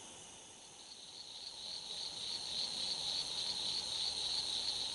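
Chorus of night insects trilling steadily at a high pitch, coming in about a second in and growing a little louder.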